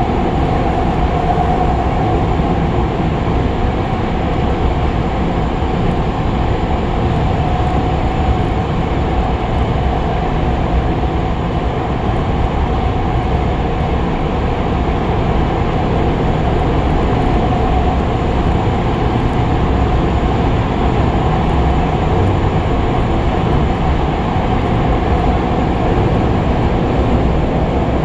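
Kobe Municipal Subway 6000 series train heard from inside the car, running at a steady speed through a tunnel: a continuous rumble of wheels on rail with a steady hum.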